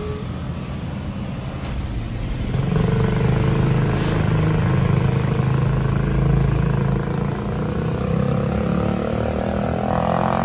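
Road traffic: motor vehicle engines running close by, heavier for a few seconds, with one engine rising in pitch as it accelerates near the end.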